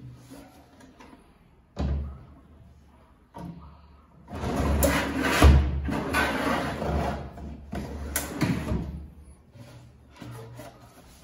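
MDF drawers running on telescopic ball-bearing drawer slides as they are pushed in and pulled out, with a rolling, scraping run and knocks as they shut against the cabinet. There is a single knock about two seconds in, and the longest run of sliding and knocks comes from about four to nine seconds in.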